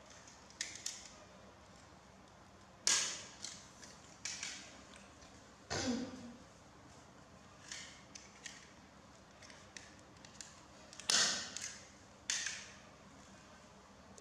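Irregular handling noises, about a dozen sharp clicks and rustles, the loudest about 3 s and 11 s in, with a short low falling sound near the middle.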